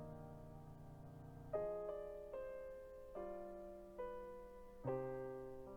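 Soft, slow piano background music: sustained chords struck every second or so, each fading away.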